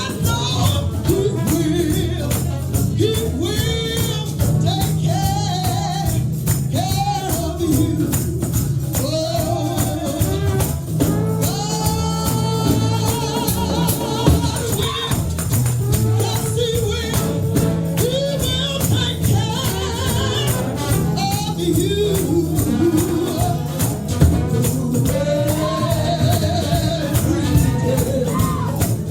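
Gospel music: singing over a band, with a tambourine shaking a steady beat throughout.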